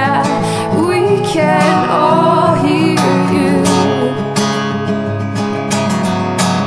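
Background music: a song with a woman singing over strummed acoustic guitar, the voice fading out about halfway through and the guitar strumming on.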